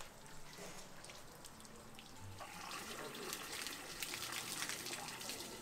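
Water running from a garden hose into a motorhome's fresh-water tank through its filler inlet. The rushing of the water gets louder about two and a half seconds in.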